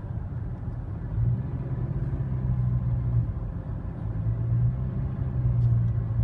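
Car interior noise while driving: the engine and tyres make a steady low rumble that swells and eases a little.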